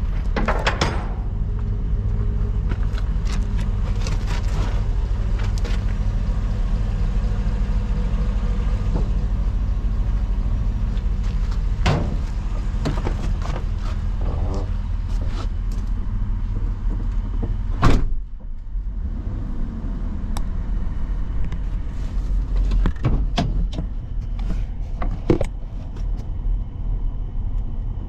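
GMC Savana box truck's engine idling steadily, with scattered clicks and knocks around the cab. A door slams shut with a loud thud about two-thirds of the way through.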